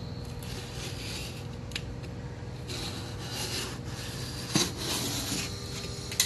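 Utility knife blade slitting packing tape and cardboard along a box seam in several scratchy strokes, with a sharp click about four and a half seconds in and a louder one near the end.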